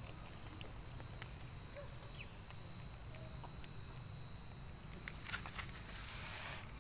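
Steady high-pitched drone of insects, with scattered soft clicks and a stretch of rustling about five seconds in.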